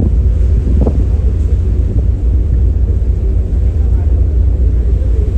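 Steady low rumble aboard a passenger ship, with faint voices murmuring in the background.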